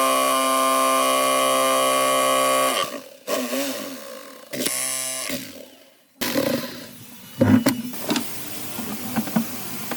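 A small electric power tool motor running steadily at speed, switched off about three seconds in and winding down, run again briefly and wound down once more, followed by scraping, handling noise and a few sharp knocks.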